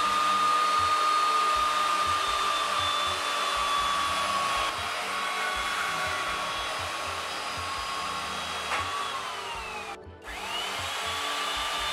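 Portable band saw (Portaband) running with a steady whine as its blade cuts through a bicycle frame tube. The pitch sags slowly under the cut and dips near nine seconds. After a short break around ten seconds the saw runs again, its whine climbing back up to speed.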